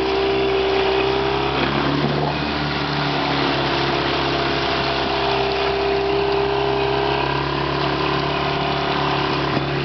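Small outboard motor on a sailboat's transom running steadily under way, with wind and water rushing past the hull.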